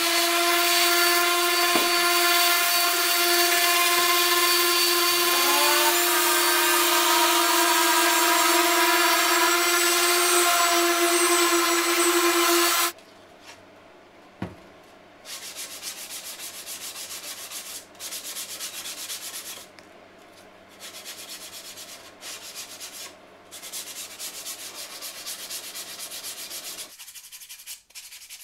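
An electric hand sander spins up and runs with a steady motor whine over the hiss of abrasive paper on plywood, then cuts off sharply about 13 seconds in. After that, quieter runs of sandpaper rubbing on plywood by hand follow, each a second or two long with short pauses between.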